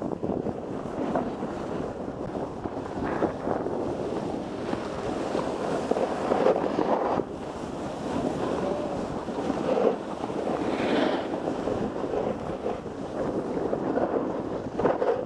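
Wind rushing over an action camera's microphone while riding fast down a groomed ski run, mixed with the rough hiss and scrape of edges on snow that swells with each turn.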